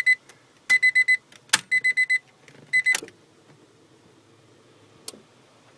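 Electronic beeping in quick groups of four short, high beeps about once a second, stopping about three seconds in. Sharp clicks come in among the beeps and once more near the end; he hears one of these clicks as the 1995 Acura Integra's main relay switching on.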